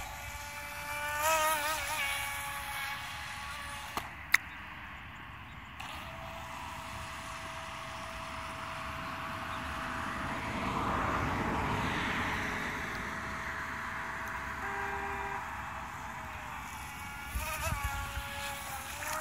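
Mini RC speedboat's small electric motor whining at a high pitch. The whine wavers up and down with the throttle at first, then holds even for several seconds before wavering again near the end. There is a single sharp click about four seconds in.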